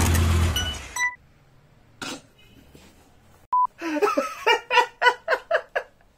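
A tyre-screech sound effect fades out within the first second, with a short high beep just after it and another about three and a half seconds in. Then a man bursts into loud laughter, about four laughs a second, for roughly two seconds.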